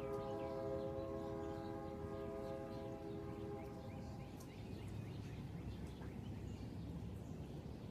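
A horn sounding one long steady chord of several notes, fading out about four seconds in, over steady outdoor background noise.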